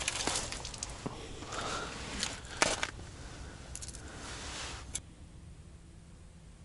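Rustling and scraping as a person moves about and handles small ice-fishing rods over holes in the ice, with several sharp clicks. It stops about five seconds in.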